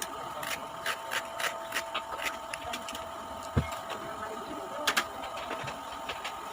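Crisp crunching of raw jicama being chewed: a run of sharp, irregular crackles, several a second, over a steady faint hum, with one low thump a little past the middle.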